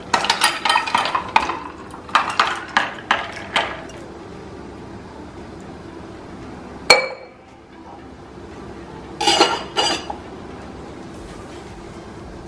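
Ice cubes clattering and clinking as a margarita is poured from a stainless-steel cocktail shaker into a glass, a quick run of clinks over the first few seconds. A single sharp metallic knock with a short ring about seven seconds in, then a couple more clinks about nine seconds in.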